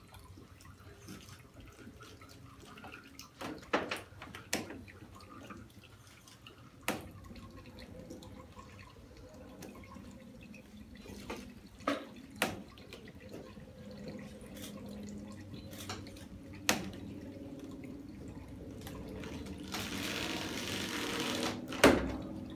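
Oil and water from a traditional wooden screw olive press dripping and trickling into a stone basin, with scattered sharp drips. Near the end there is a couple of seconds of denser rushing noise, then a loud sharp knock.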